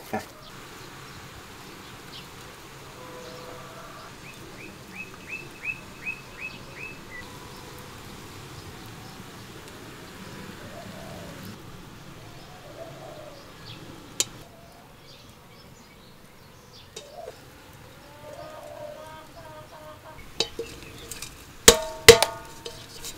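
A bird calling with a quick run of about eight short descending chirps over a faint steady background. Near the end, several loud clanks with a metallic ring as an enamel basin is handled and set as a lid over a bamboo steamer on a wood-fired stove.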